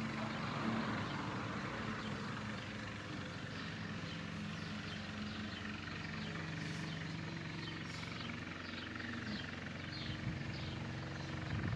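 A steady low engine drone from an unseen motor, with faint short high chirps through the middle of it.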